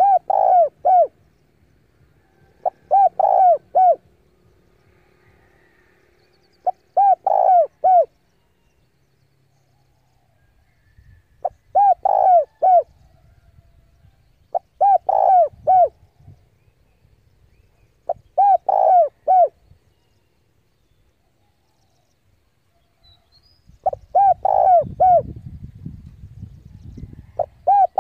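Decoy spotted dove cooing: about seven short phrases of three or four coo notes, repeated every few seconds. This is the territorial call used to lure wild males in to fight. A low rumble comes in near the end.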